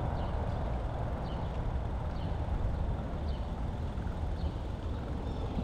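Steady low rumble of wind and road noise from a moving e-bike, with faint short high chirps about once a second.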